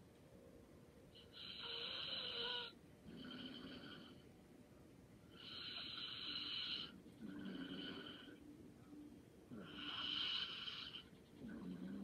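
Light snoring from a sleeping person: slow, regular breaths about four seconds apart, each cycle a louder breathy swell followed by a softer one.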